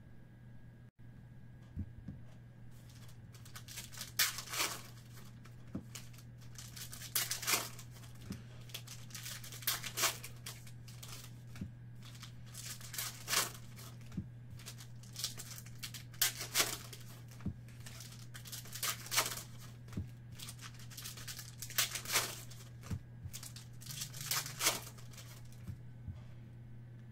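Foil wrappers of Panini Select basketball card packs being torn open and crinkled by hand: short rips every two to three seconds, often in quick pairs.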